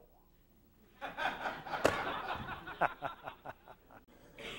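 Theatre audience laughing, starting about a second in and dying away over the next few seconds.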